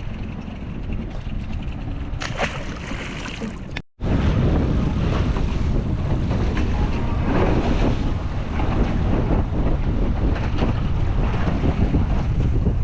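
Wind buffeting the microphone over the noise of a boat on the water. It breaks off briefly about four seconds in, then comes back louder and gustier.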